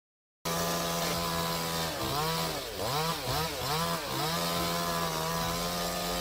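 Chainsaw engine running at high speed, starting abruptly about half a second in. Its pitch dips and comes back up several times in the middle as the engine is loaded or throttled, then holds steady again.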